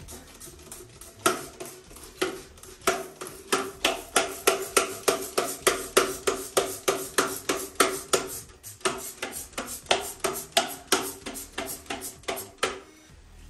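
Hand-held trigger spray bottle pumped quickly and repeatedly, about three sprays a second. The spraying starts about a second in and stops shortly before the end.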